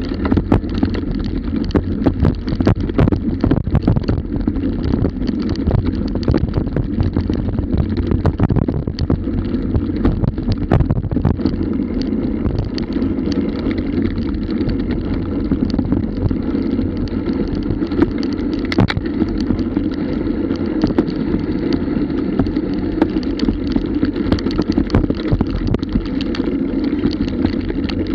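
A bicycle rattling and jolting over a bumpy grass and dirt track, with wind buffeting the microphone: a steady low rumble broken by frequent sharp clicks and knocks.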